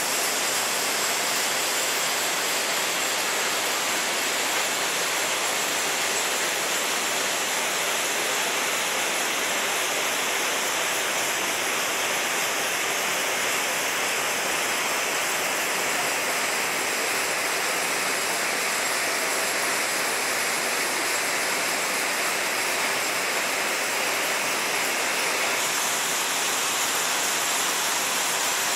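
Rows of cord braiding machines making drawstring cord, all running together as a steady, dense mechanical din.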